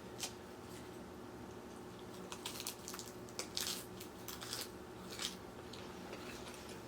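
A person chewing crunchy salad close to the microphone: short, irregular crunches and mouth clicks, over a faint steady hum.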